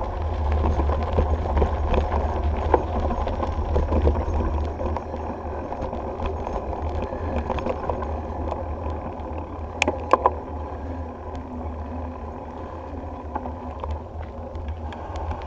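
Wind rumble on a bike-mounted action camera, with the bicycle's tyres rolling over a gravel and then a paved trail and the bike rattling over small bumps. Two sharp clicks come close together about ten seconds in.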